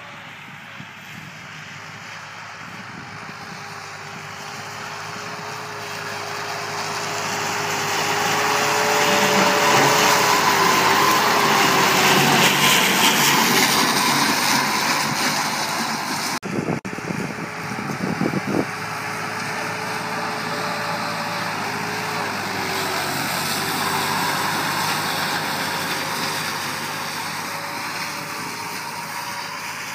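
Massey Ferguson 260 tractor's three-cylinder diesel engine running steadily under load, mixed with the whirring hiss of its tractor-mounted rotary grass mower cutting tall grass. It grows louder toward the middle as the tractor comes close, breaks off suddenly, then runs on steadier and quieter.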